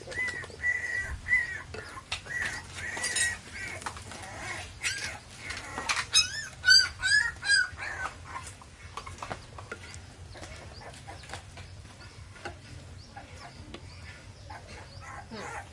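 Baby macaque giving short high-pitched squeaky calls: a run of them in the first few seconds, then a louder series of about five rising-and-falling squeaks around six to eight seconds in. Light plastic knocks from the toy truck bed, which is quieter in the second half.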